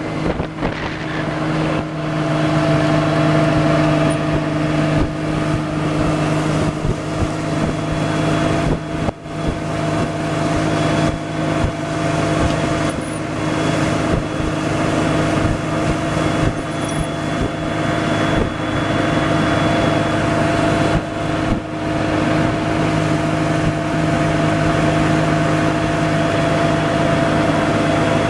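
Small motorboat's engine running steadily at an even pitch as the boat cruises, with wind and water noise over the microphone.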